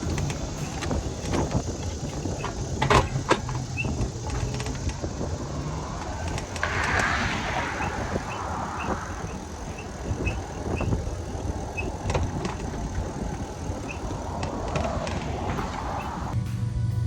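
Wind and road noise of a ride under way, with a low hum for the first few seconds, scattered clicks and knocks, and faint short high chirps in the middle.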